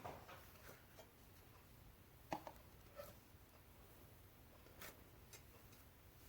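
Near silence: room tone with a few faint, short clicks and taps, the clearest about two seconds in.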